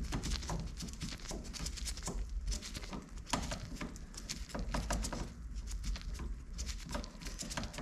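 Hand work on a car door: many small, irregular clicks and rattles of a screwdriver and hard plastic trim as a T20 Torx screw is undone and the door's exterior plastic part is worked loose.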